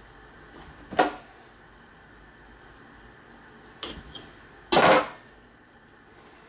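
A knife and hands knocking against a stainless steel sink drainer: a sharp metallic knock about a second in, a lighter clack just before four seconds, and a longer, louder clatter near five seconds.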